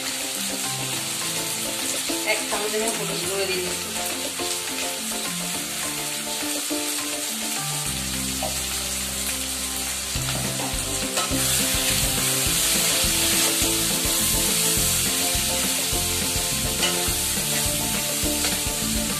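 Sliced onions and tomatoes sizzling in hot oil in a kadai, a steady hiss that grows louder about halfway through as the mix is stirred with a spatula. Soft background music runs underneath.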